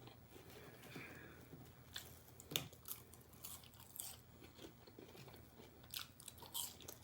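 Close-up chewing of crunchy fried food (chicken strips and fries), with faint mouth sounds and half a dozen sharp crunches spaced irregularly through.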